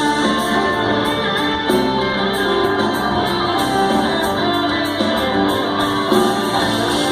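Live rock band playing an instrumental passage, with strummed guitar to the fore and no vocals.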